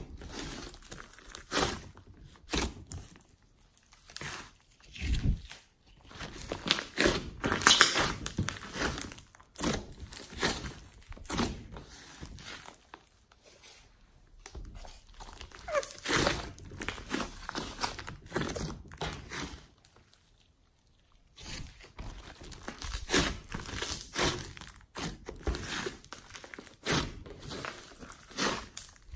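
Hands squeezing, poking and stretching a large lump of foamy slime, making irregular squishes and crackles. There is a short lull about two-thirds of the way through.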